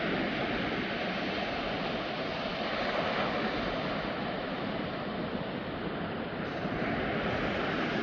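Ocean surf washing on the beach, a steady rushing noise.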